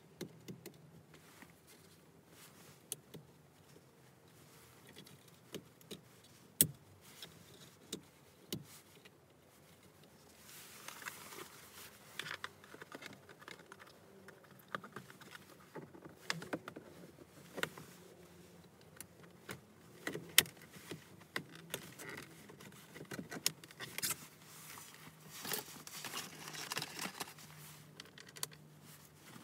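Hands working on a car's bare steering column during a clock spring fitting: scattered small plastic clicks and rattles of parts and connectors, with a sharper click about a quarter of the way in. Stretches of rustling come around the middle and again near the end.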